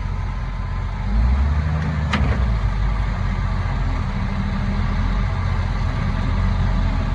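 International log truck's diesel engine running steadily, getting louder a little over a second in, with one sharp click about two seconds in.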